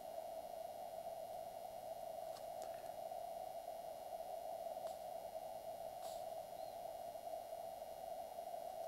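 Faint steady hiss held to a narrow mid pitch, like a CW receiver's band noise passed through its narrow audio filter, with a few faint scratches of a felt-tip marker on paper.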